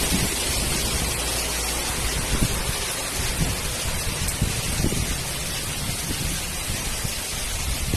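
Floodwater rushing down a flooded street: a steady, loud rush of water noise, with a few short low thuds.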